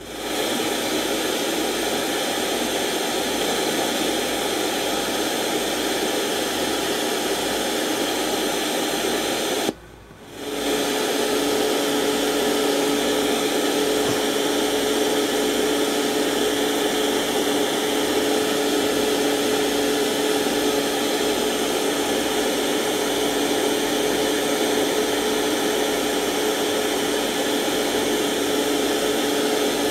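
Homemade RDA5807M FM radio receiver playing steady, loud static hiss. About ten seconds in it cuts out for half a second, and after that two steady low tones run under the hiss.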